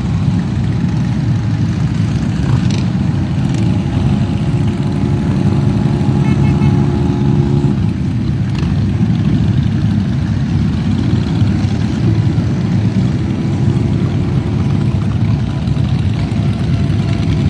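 Many motorcycle engines running together in a steady low rumble, with one engine's note standing out clearly for a few seconds around the middle.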